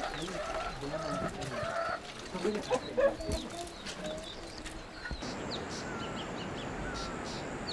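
Domestic chickens clucking and calling around a village farmhouse at dusk. About five seconds in, this gives way to a steady outdoor hush with a few short, falling bird whistles.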